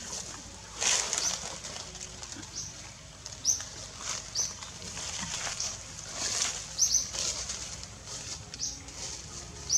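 Small birds chirping in short, high notes every second or so, with a few brief rustles in between.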